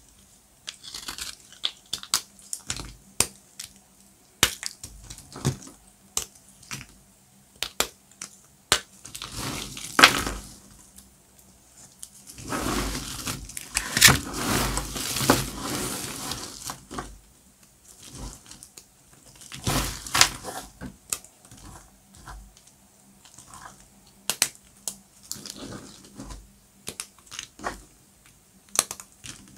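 Dry, crunchy soap being cut: a run of crisp cracks and crackles. There is a longer crunching stretch about ten seconds in, a longer one from about twelve to seventeen seconds, and another near twenty seconds.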